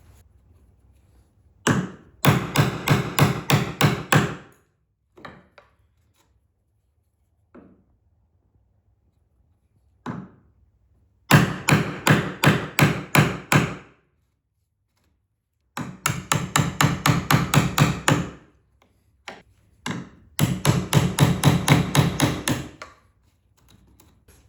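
Rapid hammering, about four or five blows a second, in four runs of two to three seconds each, with a few single knocks between the runs.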